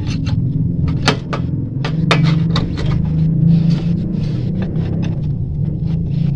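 A wrench clicking and knocking against the belt adjuster bolt on an Isuzu Panther's power steering pump as it is turned to tighten a slack belt, the bolt stiff to turn. A steady low hum runs underneath.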